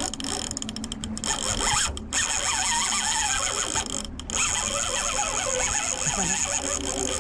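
The drag of a large conventional reel is running as a hooked fish pulls line off. It is a steady, high mechanical buzz that cuts out briefly twice, about two and four seconds in.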